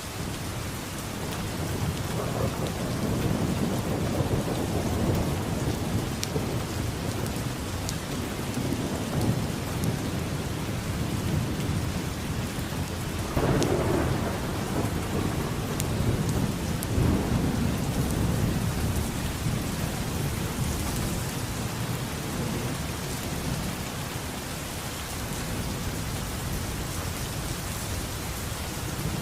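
Steady rain falling, with rolling thunder rumbling low underneath. The thunder builds a few seconds in, gives a sharper crack about halfway, then dies away over the last third.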